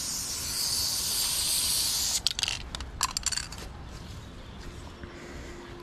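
Aerosol spray paint can spraying: one long steady hiss of about two seconds, then several short spurts, as lines are sprayed onto a wall.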